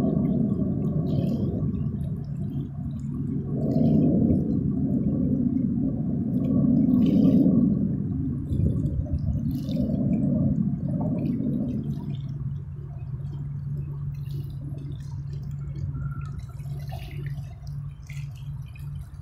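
Distant roar of Alpha Jets' Larzac turbofan engines, a low rumble that swells and fades several times as the jets pass. After about twelve seconds it dies down to a weaker steady low hum.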